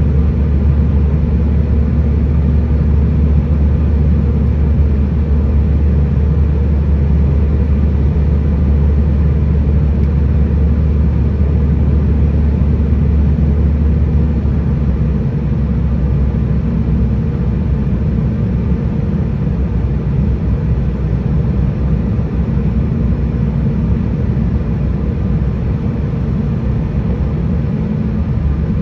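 Steady low drone of a regional airliner's engines and airflow heard inside the passenger cabin, easing slightly about halfway through.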